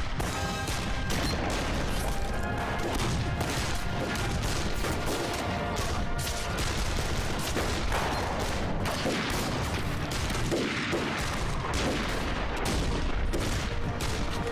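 Dense, continuous battle gunfire: many rifles and machine guns firing at once, shot after shot with no pause.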